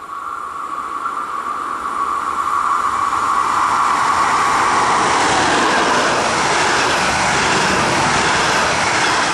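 Double-deck regional train approaching and passing close by. A steady high tone at first, then wheel-on-rail rumble and rush grow louder and stay loud as the coaches go by.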